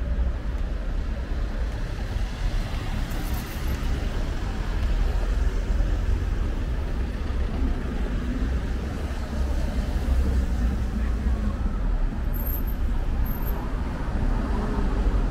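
Steady city street traffic noise: a continuous rumble of passing cars and other vehicles.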